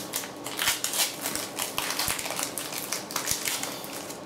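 Foil Pokémon booster pack wrapper crinkling and crackling in the hands as it is torn open, a dense run of sharp irregular crackles.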